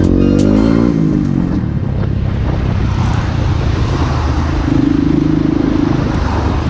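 Small motorcycle engine running with wind and road rush. Its pitch falls over the first second as the throttle is rolled off, and from about four and a half seconds in it holds a steadier, higher note.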